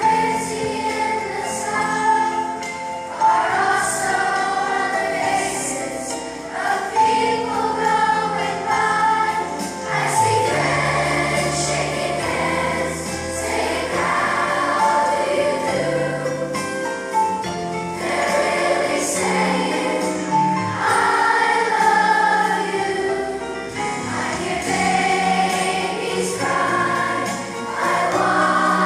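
Fifth-grade children's choir singing a song in unison over an instrumental accompaniment with a bass line.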